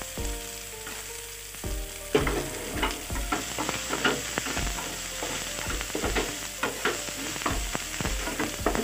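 Chopped onion and garlic sizzling in hot oil in a non-stick frying pan, stirred with a wooden spatula that scrapes and taps against the pan in frequent short clicks.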